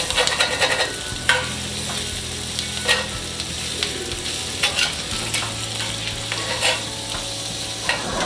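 Asparagus sizzling in butter in a cast-iron skillet, with metal tongs clicking and scraping against the pan each time the spears are turned.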